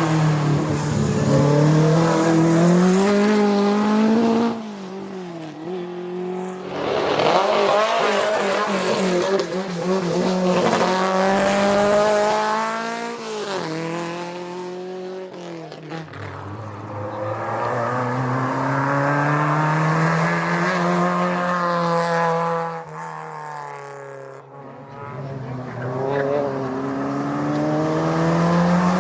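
Historic racing car engine revving hard as it climbs through the gears, its pitch rising steadily and then dropping back at each gear change or lift, several times over.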